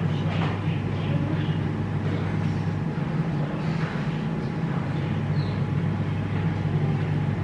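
Steady low hum of a running vehicle engine.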